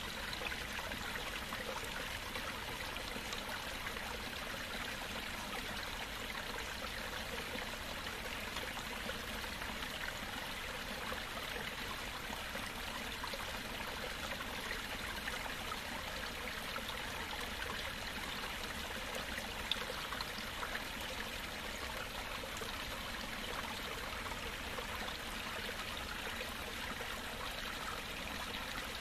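Water trickling and running steadily into a backyard pond, with one brief tick about two-thirds of the way through.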